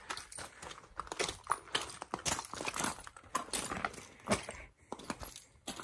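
Gear being handled and packed: an irregular scatter of small knocks, clicks and rustles.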